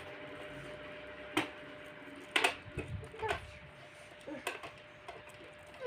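Plastic toy kitchen pieces being handled, giving several sharp, irregularly spaced clicks and knocks over a faint steady hum.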